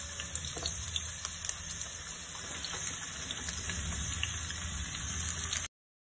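Chopped tinda (apple gourd) pieces going into hot oil in a steel kadhai, with a steady sizzle dotted with small crackles. It cuts off suddenly shortly before the end.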